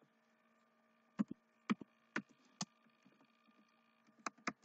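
Computer keyboard keystrokes typed one at a time, about six sharp clicks at uneven spacing, over a faint steady electrical hum.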